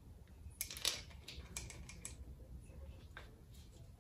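Scattered faint clicks and taps of hand tools and small metal parts being handled on an engine, irregular, most of them in the first half.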